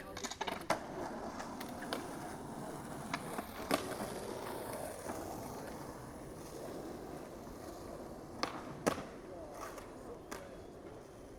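Skateboard wheels rolling on a skate-park surface with a steady rumble that eases off near the end. Sharp clacks of the board land about a second in, again near four seconds, and twice in quick succession later on.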